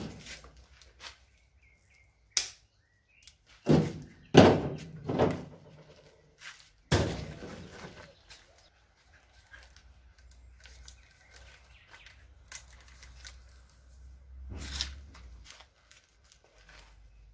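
Handling noises as nylon trimmer line and a trimmer spool head are worked by hand: a run of separate knocks and thumps in the first half, the loudest about four seconds in, then faint ticks and one more thump near the end.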